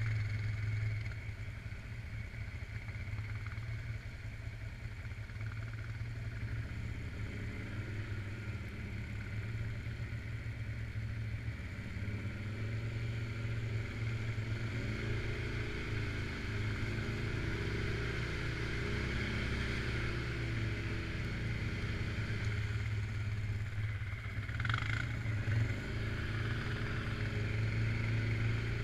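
Suzuki King Quad 750 ATV engine, a single-cylinder four-stroke, running and being ridden, its pitch rising and falling with the throttle. A short sharp sound about twenty-five seconds in.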